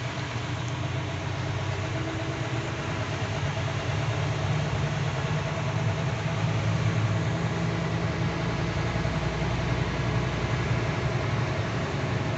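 Heavy truck's diesel engine running steadily, heard from inside the cab as a low hum that grows a little louder over the first few seconds.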